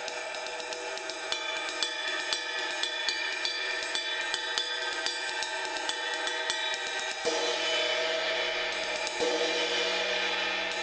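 Vintage 1960s Sonor 20-inch ride cymbal, hand-hammered and with rivet holes, played with a wooden drumstick: a steady ride pattern of stick strikes, two to three a second, over a long ringing wash. The wash swells with a heavier strike about seven seconds in and again about two seconds later. Loud, with a good bit of sustain; this is the cymbal's original, undrilled sound.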